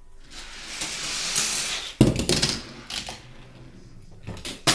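A Hot Wheels die-cast car running fast down a plastic track with a rising whir, then landing hard about two seconds in and clattering as it tumbles, with another short clatter near the end.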